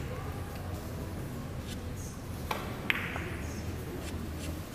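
Two sharp clicks about half a second apart near the middle, typical of ivory-hard billiard balls striking, over a steady low hall hum.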